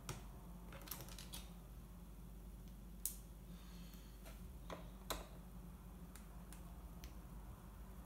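Light, irregular clicks and taps of a small screwdriver and tiny screws against a laptop's plastic bottom case as its bottom-panel screws are undone and set down, the sharpest about 3 and 5 seconds in.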